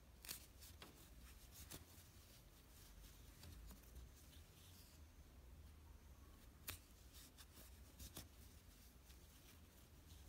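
Near silence, with a few faint, scattered clicks and light rubbing as a metal crochet hook works yarn in half double crochet stitches.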